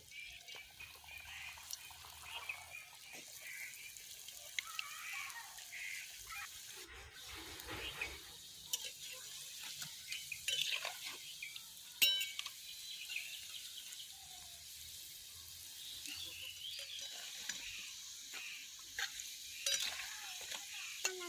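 Potato-and-noodle fingers (Maggi pakoda) deep-frying in hot oil with a steady sizzle, with scattered scrapes and clicks of a utensil in the pan and one sharp metallic clink about twelve seconds in.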